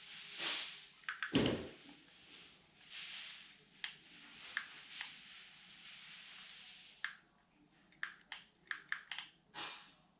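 Handling noises: soft rustling hisses, a dull thump about a second and a half in, and a run of sharp clicks and taps near the end.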